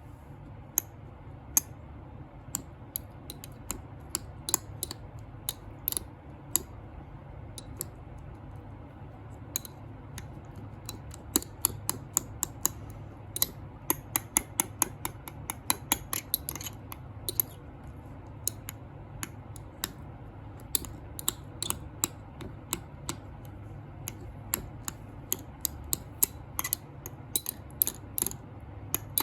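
Slime being poked and pressed, giving a long series of sharp, irregular pops and clicks as trapped air bursts, singly and in quick clusters. A low steady hum runs underneath.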